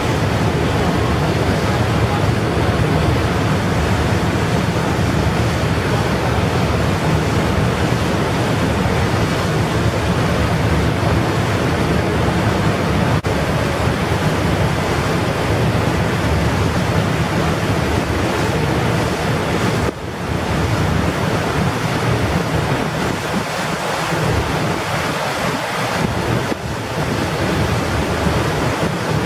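Steady rushing wind noise on the microphone, heaviest in the low end.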